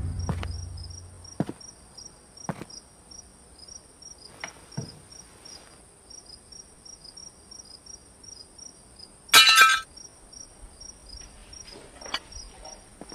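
Crickets chirping: a steady high trill with regular short chirps over it. Sparse light clicks of cutlery on a plate sound through it, and there is a louder ringing clink about nine seconds in.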